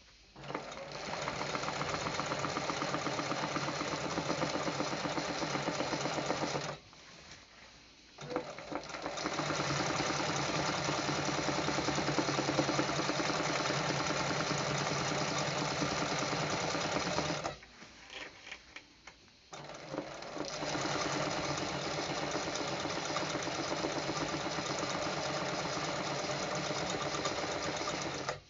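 Sewing machine stitching free-motion machine embroidery, the fabric hand-guided under the needle. It runs at a fast, steady pace in three spells, stopping twice briefly with a few small clicks in the pauses.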